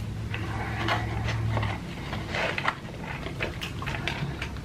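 A person chewing food with wet, irregular mouth clicks and crunches.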